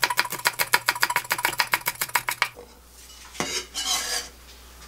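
Chef's knife rapidly mincing green onion on a wooden cutting board, a quick even run of chopping strokes that stops about two and a half seconds in. Then the blade scrapes briefly across the board, gathering the minced onion.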